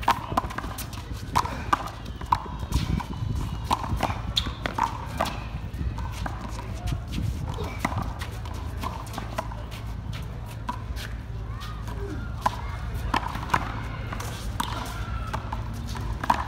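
Three-wall handball rally: sharp, irregular smacks of the rubber ball off the players' hands, the concrete wall and the court, several a second at times.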